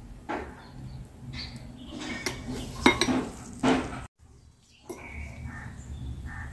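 Metal wire whisk clinking and scraping against a glass bowl of thick whipped coffee, sugar and water, with several sharp clinks over the first four seconds. Just after four seconds the sound cuts out for a moment, then only faint handling follows.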